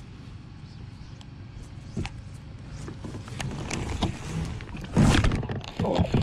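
Clicks and knocks of a fishing rod and reel being handled aboard a kayak, over a steady low rumble. A louder burst of knocking comes about five seconds in, and more near the end.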